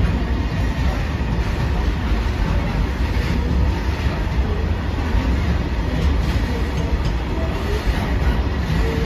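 Freight train of car-carrying flat wagons rolling past at speed: a steady, heavy rumble of steel wheels on the rails with a few faint clacks.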